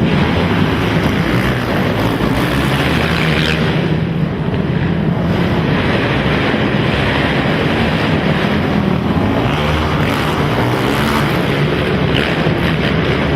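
Several racing quad (ATV) engines running hard together, their pitches rising and falling as riders rev and back off, loud and continuous.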